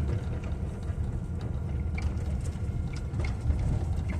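Low, steady rumble of a vehicle being driven, heard from inside the cab, with a few faint ticks.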